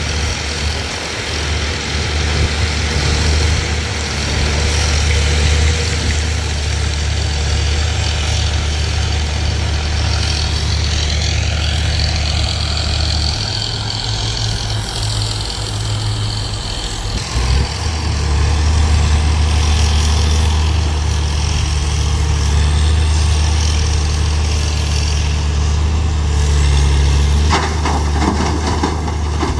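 Large excavator's heavy diesel engine running steadily. Its revs drop for a few seconds from about 13 seconds in, then pick up again.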